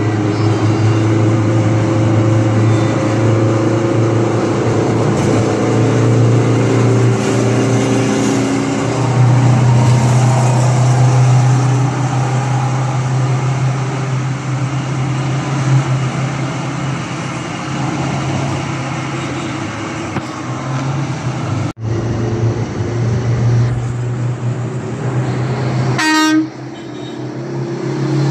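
Steady hum of road vehicle engines at highway speed, with several steady tones held above the drone. It breaks off briefly about 22 s in and changes abruptly near the end.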